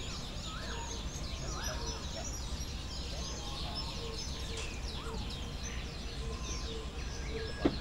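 A chorus of many birds chirping and trilling, with a few slower whistles that rise and fall, over a steady low rumble. A low note repeats rapidly through the second half, and a single sharp click sounds near the end.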